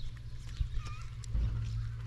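A spoon stirring in a metal pot, with a few light clinks against the pot, over a steady low rumble.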